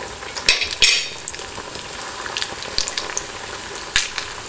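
Potato-stuffed bread rolls deep-frying in hot oil: a steady sizzle full of small crackles. It flares up loudly twice about a second in, and again near the end as another roll is lowered into the oil.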